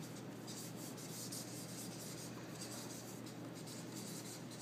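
Marker pen writing on a sheet of paper, quiet scratching strokes of handwriting, over a steady low hum.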